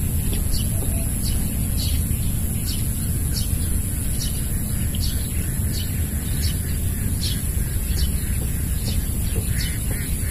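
Outdoor ambience by a rice-field swamp: a low steady rumble, a steady high-pitched whine, and short high chirps repeating every half second or so.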